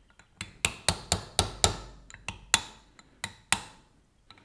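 A hammer tapping on a punch against the steel inner race and cage of a CV joint, working the ball bearings into the outer race. About ten sharp metallic taps, many in quick pairs, with a short pause near the end.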